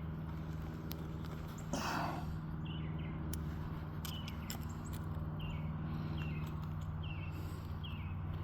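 A bird chirping over and over in short falling notes, over a steady low hum; a brief rushing scrape about two seconds in.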